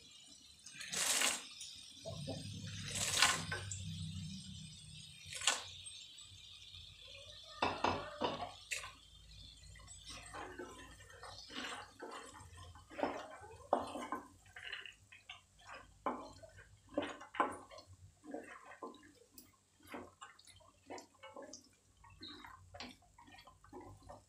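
Wooden spatula stirring green cowpea beans into thick masala in a non-stick kadhai: a few loud knocks in the first few seconds, then a quick irregular run of wet scrapes and clacks against the pan.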